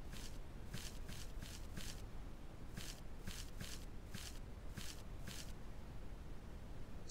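Faint footsteps: about eleven short, high scuffing steps at an uneven pace, stopping a little over two-thirds of the way through.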